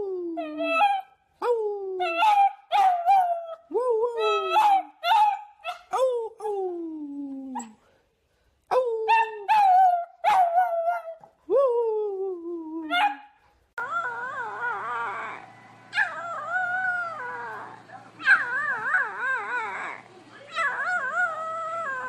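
Puppies howling: a run of short pitched howls and yips, each sliding downward in pitch. After a brief pause about two-thirds of the way through, a different recording follows, with wavering, warbling puppy howls over a steady low hum.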